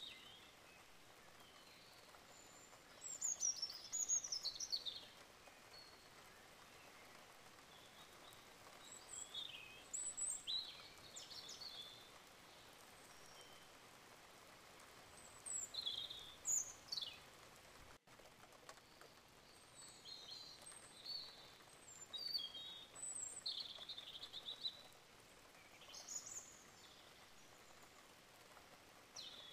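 Small birds chirping and calling in short bursts every few seconds over a faint steady hiss.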